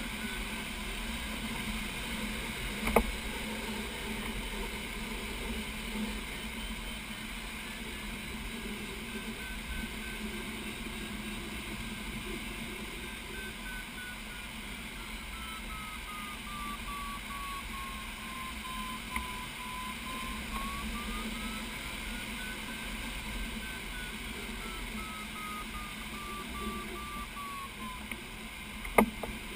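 A glider's audio variometer beeping over the steady rush of air past the cockpit canopy, its pitch sliding down, back up and down again as the sailplane's climb rate changes, then falling silent shortly before the end. A sharp click about three seconds in and another near the end.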